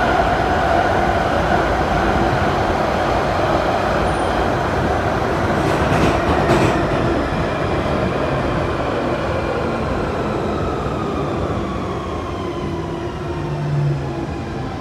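London Underground 1992 Tube Stock train running in tunnel, heard from inside the car: a steady rumble of wheels on rail with a couple of knocks about six seconds in. In the last few seconds the traction motor whine falls in pitch as the train slows for a station.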